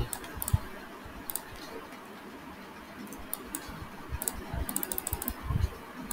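Computer keyboard and mouse clicking: a few scattered single clicks, then a quick run of key presses about four to five seconds in. A soft low thump follows near the end.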